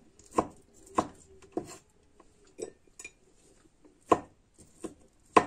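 A kitchen knife cutting cooked chicken into pieces, its blade knocking on the cutting board about eight times at uneven intervals.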